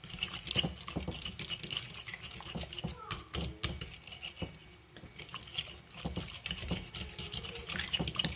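A utensil beating eggs into a yogurt and cheese mixture in a glass bowl: quick, uneven clicks of the utensil against the glass, with the wet slap of the batter.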